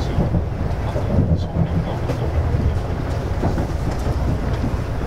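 Steady low rumble of an N700A Shinkansen train running, heard from inside the passenger car.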